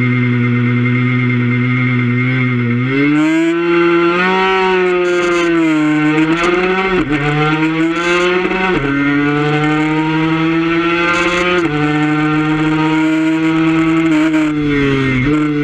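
Suzuki RG150 two-stroke single-cylinder race bike engine heard onboard. It is held at steady high revs on the start line, then rises in pitch about three seconds in as the bike launches. After that it climbs and falls with the throttle, dropping sharply in pitch at several gear changes.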